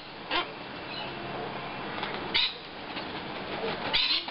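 Sulphur-crested cockatoos flapping their wings close by: three short harsh bursts, about a third of a second in, at the halfway point, and loudest near the end as one flies in to land.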